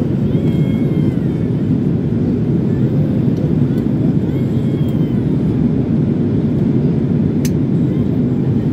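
Steady engine and airflow noise inside a Boeing 777's passenger cabin in flight, an even low rumble that does not change. A faint click comes about seven and a half seconds in.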